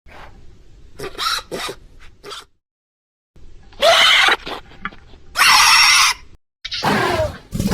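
Made-up dinosaur creature calls, blended from utahraptor, velociraptor and goose sounds: a few short chirps followed by three longer, loud screeching calls separated by brief silences.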